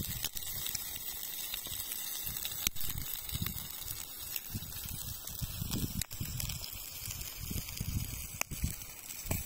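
Arctic char fillets sizzling in a frying pan over a campfire, a steady hiss broken by a few sharp pops. Low gusts of wind rumble on the microphone every second or two.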